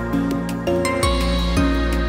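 Background music: held chords that change every half second or so over a deep bass note, with a steady ticking beat.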